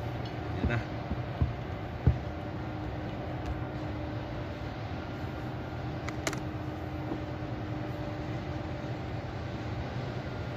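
Steady mechanical hum with a faint constant tone underneath. A few light knocks in the first two seconds and one sharp metallic click about six seconds in come from small steel parts being handled on a chain hoist's housing.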